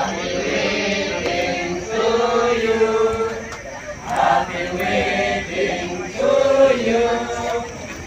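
A group of people chanting together in unison, in phrases of long held notes with short breaks between them.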